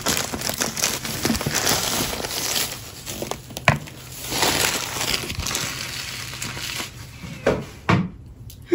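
Packaging rustling and crinkling as a new electric kettle is unwrapped, with a few sharp knocks about a third of the way in and near the end.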